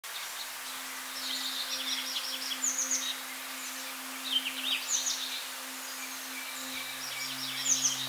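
Small songbirds chirping and twittering in quick high bursts, three spells of it, over a soft steady drone of held low tones; a deeper tone joins the drone near the end.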